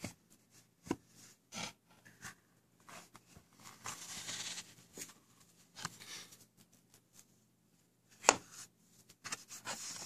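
Handling noises: a cotton-gloved hand rubbing and tapping an acrylic coin display frame and its wooden presentation box as the frame is lifted out, with scattered clicks, a stretch of rubbing, and a sharp knock about eight seconds in.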